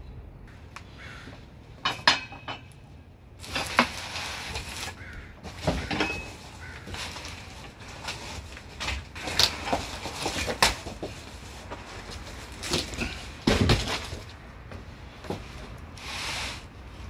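Heavy steel press plates and the steel frame of a hydraulic shop press clanking and knocking irregularly as they are handled and set in place, with a few longer scrapes of metal sliding.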